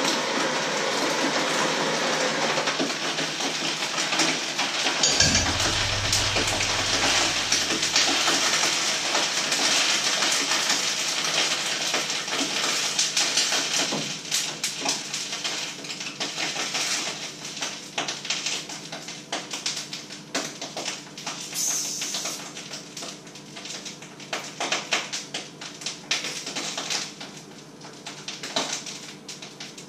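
Electric hand mixer running steadily in a stainless steel bowl. About halfway through it stops, and scattered clicks and knocks of handling follow.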